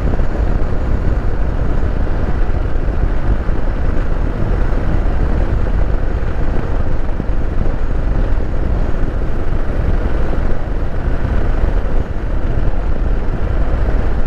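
Kawasaki KLR 650's single-cylinder four-stroke engine running as the motorcycle is ridden at a steady speed, a loud even rumble with road and wind noise.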